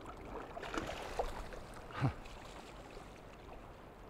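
Shallow river water lapping and splashing lightly around hands and legs as a sockeye salmon is released and the man wades, with a short, louder low sound about two seconds in.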